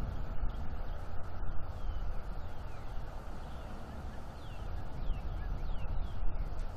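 Outdoor dawn ambience: a steady low rumble and hiss, with several short, falling chirps from small birds from about the middle on.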